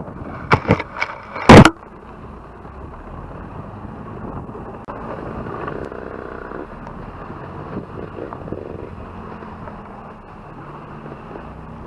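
An off-road vehicle driving over a rough dirt track, heard through a camera mounted on its spare wheel: a steady rumble. About half a second to a second and a half in come a few sharp knocks, the last one the loudest, like hard jolts over the bumps.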